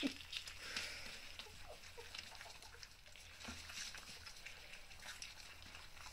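Three-week-old puppies eating soft minced meat from a stainless steel puppy feeding dish: faint wet smacking and lapping with small clicks, and a few brief squeaks.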